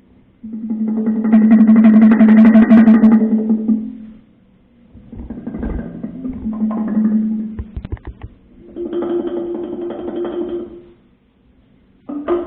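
Experimental percussion music: steady pitched tones in three phrases a few seconds long with pauses between them, and a few sharp knocks near the end.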